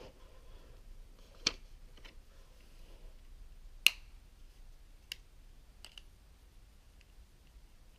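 A few sharp plastic clicks from a plastic toy being handled, four distinct ones spread over the first six seconds, the loudest a little under four seconds in, then a couple of fainter ticks.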